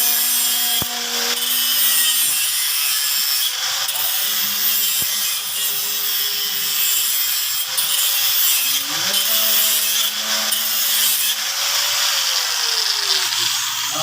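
Power tool sanding the metal body of a fryer: a continuous harsh rasping noise with a wavering hum underneath.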